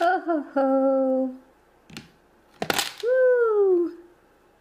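A high-pitched voice calling out cheerful exclamations: a held "oh-ho" at the start, then a long "woo" that slides down in pitch, with a brief burst of noise just before it.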